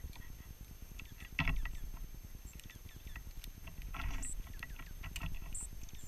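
Dark-eyed juncos at a seed feeder: scattered short, high chips and twitters, a thump about one and a half seconds in as a bird lands on or knocks the feeder, and a brief rustle of wings about four seconds in.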